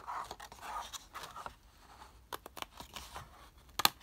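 Scissors cutting through thick black card, with the card rustling as it is handled. A few quick snips come about two seconds in, and a sharp, louder snip near the end.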